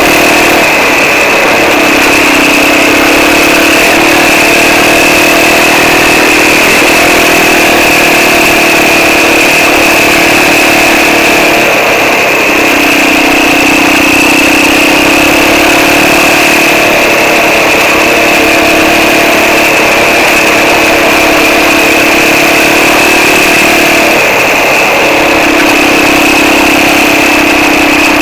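Quad bike (ATV) engine running loud and close while riding, its note easing off and picking up again twice, with a steady high whine above it.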